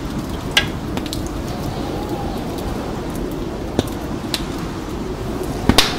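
Added winter ambience with no music: a steady low rushing noise with scattered sharp clicks.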